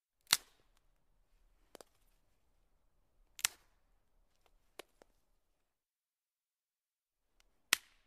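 Twigs snapping one at a time: three loud, sharp cracks spaced a few seconds apart, with fainter snaps between them.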